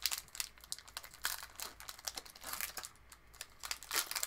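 Wrapper of a 2021 Topps Series 1 baseball card pack crinkling and crackling in the hands as the pack is opened, in irregular rustles with small clicks from the cards.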